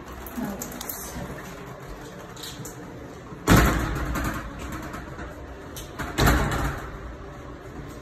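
An interior door with round knobs being swung and handled, giving two loud thuds about three seconds apart.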